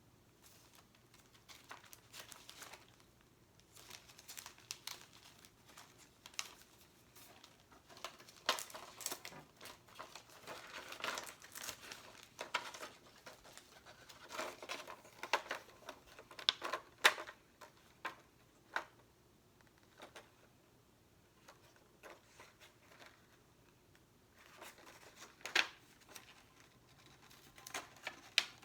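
Stickers and sticker sheets being handled close up: irregular crinkling and peeling sounds with occasional sharp clicks, the loudest about two-thirds of the way through.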